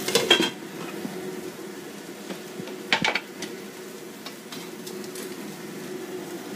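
A metal lid clattering onto a frying pan of stir-fried long beans, with a sharp clank of cookware about three seconds in and a few light taps after. The covered pan sizzles faintly beneath a steady hum.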